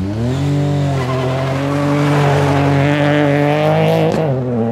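Rally car engine running hard on a gravel stage: the revs climb sharply at the start and are held high, with a hiss of tyres sliding on loose gravel in the middle, then dip briefly and pick up again near the end.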